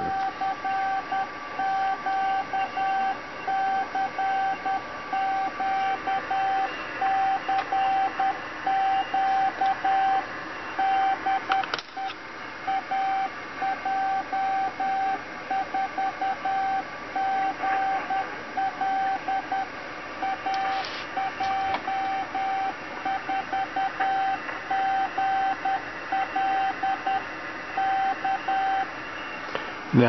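A CQ call sent automatically in Morse code: a single steady beep keyed on and off in dots and dashes, the amateur radio transceiver's CW tone keyed by an Arduino Nano keyer through a solid-state relay, over a faint steady hum. The sending breaks off briefly with a click about twelve seconds in, then carries on until near the end.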